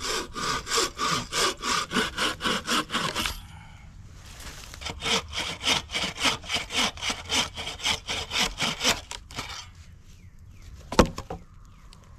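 Wooden frame saw cutting through a log by hand, with quick, even back-and-forth strokes in two runs separated by a short pause. A single sharp knock follows near the end.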